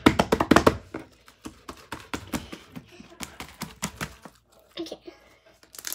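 Clear slime being worked and squeezed in the hands, clicking and popping as air pockets in it burst: a quick run of sharp clicks in the first second, then scattered crackles.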